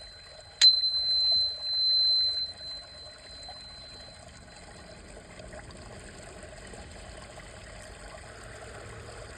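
A small high-pitched bell struck once about half a second in. Its single clear tone rings out and fades away over about three seconds. After that only a faint steady background hiss remains.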